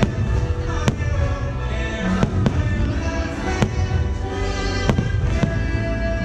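Aerial fireworks bursting: about seven sharp bangs at irregular intervals over the show's soundtrack music.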